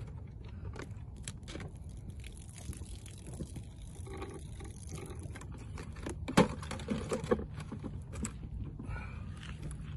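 Plastic water jugs being handled, crinkling and knocking together, with water sloshing inside them. The loudest knock comes about six seconds in, among a run of clatter, over a steady low rumble.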